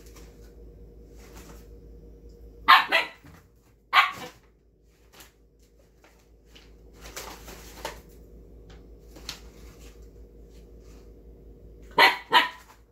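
Siberian husky puppy barking in short, sharp single barks: one about three seconds in, another a second later, then two quick ones in a row near the end.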